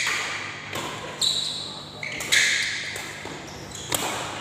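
Badminton doubles rally in an echoing hall: rackets smacking the shuttlecock four times, roughly once a second, with high squeaks from players' shoes on the court between hits.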